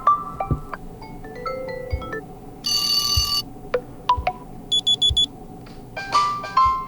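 A OnePlus Nord 2T 5G built-in alarm tone playing: a bright electronic melody of short pitched notes that ring briefly, with a bell-like chord about three seconds in and a quick run of chimes near five seconds.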